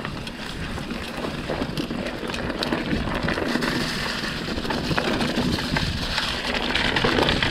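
Mountain bike rolling along a dirt trail: wind rushing over the microphone, tyre noise and small clicks and rattles from the bike, growing steadily louder.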